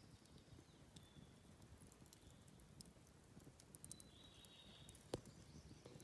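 Wood campfire crackling faintly, scattered small pops and snaps, with one sharper pop about five seconds in.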